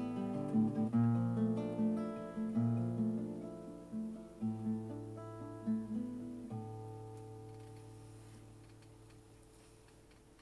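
Solo classical guitar playing the closing bars of a song, picked notes and chords, with a final chord about six and a half seconds in left to ring and fade away.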